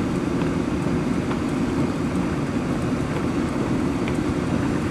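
Steady storm wind blowing over the microphone, a constant low rushing rumble.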